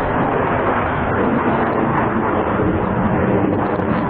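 Steady, loud jet engine noise from a Sukhoi Su-57 fighter flying overhead.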